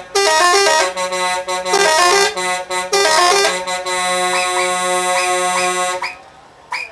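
Italian multi-trumpet musical air horn on a Scania truck playing a quick tune of changing notes. It then holds one chord for about two seconds and cuts off suddenly about six seconds in. Short rising whistles sound over the held chord and carry on after the horn stops.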